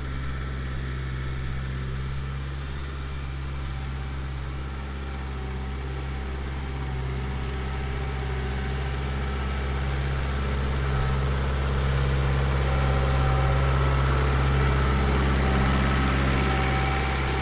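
Vehicle engine running steadily at a constant speed, growing somewhat louder through the middle and later part.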